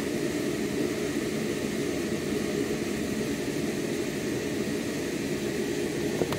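Steady mechanical drone of background machinery, with a couple of light knocks near the end.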